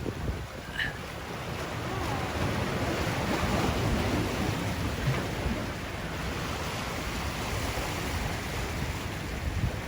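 Sea waves washing against rocks, swelling and easing, with wind buffeting the microphone. A brief high chirp about a second in.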